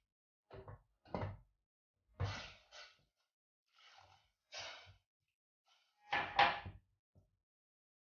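A metal spoon clanking and scraping against a pressure cooker while the khichdi is stirred, as a string of about seven short knocks, the loudest with a brief ringing tone near the end.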